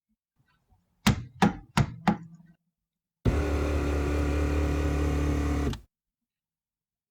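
Four sharp knocks in quick succession, then a loud steady electric-sounding hum with a low buzz that starts and cuts off abruptly after about two and a half seconds.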